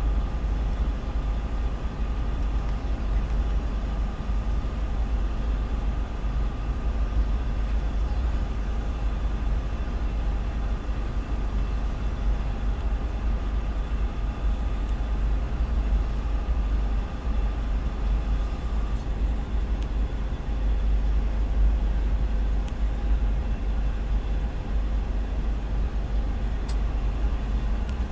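Freight train of tank cars rolling steadily past, a continuous low rumble heard from inside a car's cabin.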